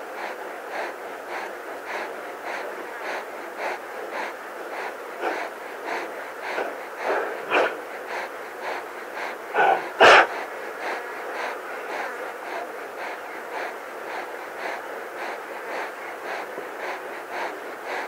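Lion panting rapidly at close range, about two to three breaths a second, panting to shed heat. About ten seconds in comes a sharp, louder double cough.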